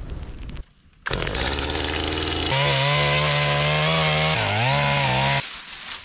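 Two-stroke chainsaw cutting branches on a brush pile. It runs at a lower speed, is opened to full throttle about two and a half seconds in, and its pitch dips briefly near the end as it bogs under load, then recovers. It stops abruptly.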